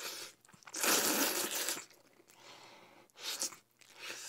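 Jjajangmyeon noodles slurped up from chopsticks: a long, loud slurp about a second in, then two shorter slurps near the end.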